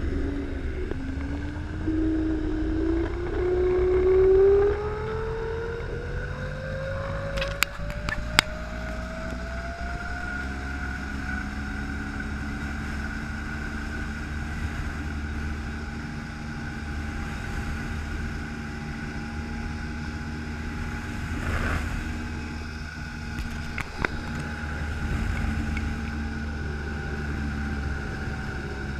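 Zipline trolley pulleys whining along the steel cable, the pitch rising for the first several seconds as the rider picks up speed and then holding steady. A low rumble of wind on the microphone runs beneath it, with two sharp clicks about eight seconds in.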